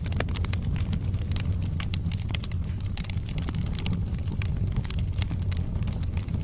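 Wood fire burning in a fireplace: logs crackling with many quick, irregular pops and snaps over a steady low rumble of the flames.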